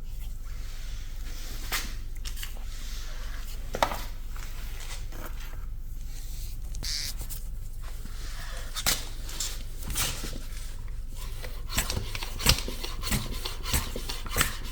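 Handling noises: scattered clicks, taps and rubbing of plastic and metal parts as a hand-pump oil extractor and its suction tube are set up. The clicks come more often near the end. A steady low hum runs underneath.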